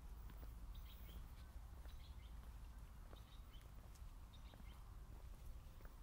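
Faint footsteps of sneakers on brick paving, with small birds chirping now and then over a low outdoor rumble.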